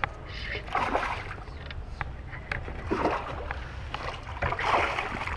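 Baitcasting reel being cranked in on a hooked bass, with scattered sharp clicks and three short bursts of splashing. A steady low rumble of wind sits on the microphone throughout.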